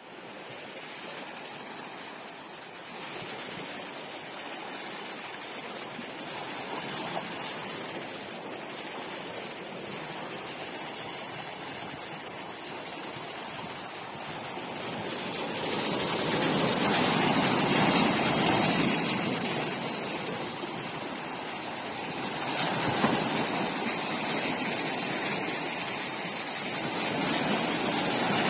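Sea surf washing onto a beach: a steady rush of waves that grows louder about halfway through, then swells and eases every few seconds as waves break.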